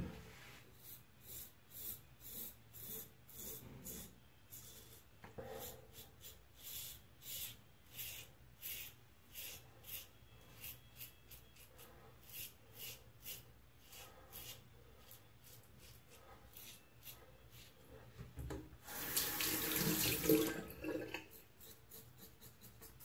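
Merkur Progress adjustable double-edge safety razor, set to 3 for the second pass, scraping through lathered stubble in short strokes, about two a second. About nineteen seconds in, a tap runs for a second and a half.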